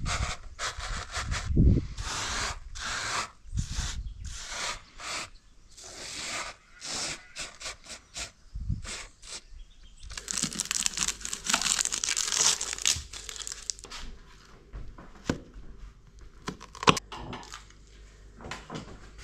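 Repeated short tearing and crinkling strokes, several a second, turning into a dense stretch of tearing about halfway through, then thinning to scattered clicks with one sharp knock near the end.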